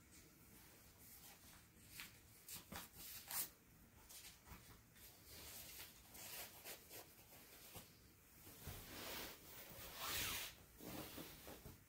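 Soft scraping and rubbing as a bamboo tea scoop (chashaku) takes powdered matcha from an open black lacquered tea caddy. There are several short scrapes a couple of seconds in and a longer rub near the end.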